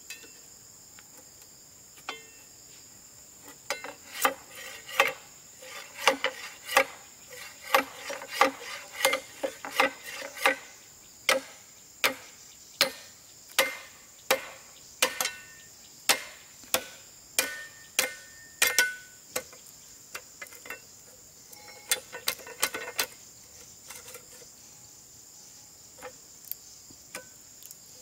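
Repeated sharp blows of a tool striking wood, about three every two seconds for roughly fifteen seconds, then a brief flurry a few seconds later. Crickets or other insects chirr steadily behind.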